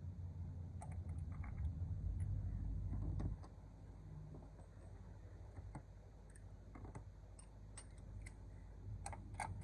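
Light, scattered clicks and taps of small metal parts being handled by hand, over a low rumble that drops away about three seconds in. A quick run of sharper clicks comes near the end.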